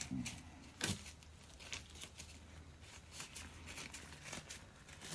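Faint handling noises of loose transmission parts: scattered light clicks and rustling, with one sharper click about a second in.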